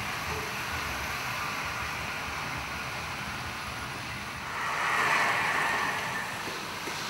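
Hornby 00 gauge model trains running on the layout's track: a steady rolling noise that swells louder for about two seconds around five seconds in.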